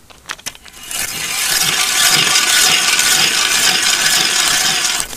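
Ice auger boring through lake ice: a loud, steady grinding scrape that starts about a second in and stops suddenly near the end.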